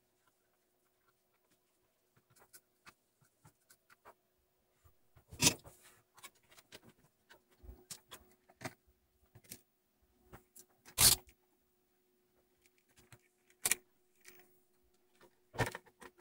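Handling noise as a multimeter and its probes are set up on a TV power-supply circuit board: scattered light clicks and taps, with two louder short clatters about five and eleven seconds in, over a faint steady hum.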